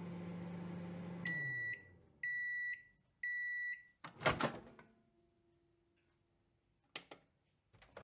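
Microwave oven finishing its run: the hum winds down, then three beeps about a second apart, each lasting about half a second. About four seconds in, the door opens with a loud clunk, followed by a couple of faint clicks near the end.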